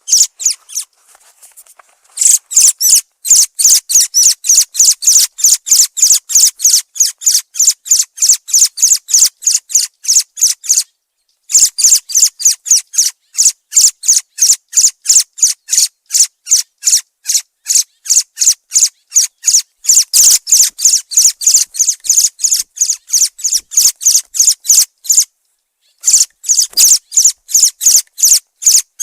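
Thrush (zorzal) calling: a rapid, even series of sharp high notes, about five a second, in long runs with a few short pauses.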